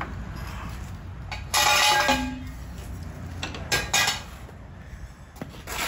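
Metal clinks and clanks from working a floor jack under the car. The loudest is a ringing clank about a second and a half in, followed by a few lighter knocks.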